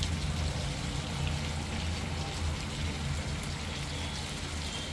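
Marinated chicken pieces shallow-frying in oil in a pan: a steady sizzle.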